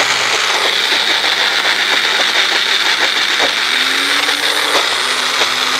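NutriBullet personal blender motor running steadily at full speed, blending a thick mix of chickpeas and almond butter with a little water.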